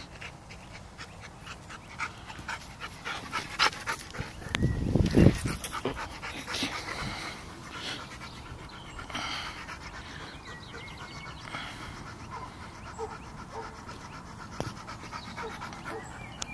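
An 8-month-old Bernese mountain dog panting with its mouth open. About five seconds in there is a loud low rumble.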